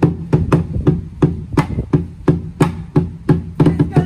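A drum beaten in a steady rhythm, about three strikes a second, for a ceremonial dance.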